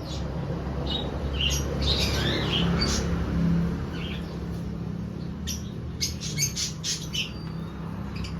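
Birds chirping and squawking in short, quick calls, with a cluster of rapid chirps about two-thirds through, over a low steady hum.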